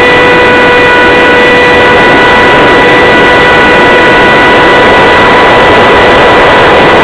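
70mm electric ducted fan of an RC F-4 Phantom model jet, heard up close from a camera mounted on the model: a loud, steady whine over a rushing noise, its pitch dropping right at the end as the throttle comes back.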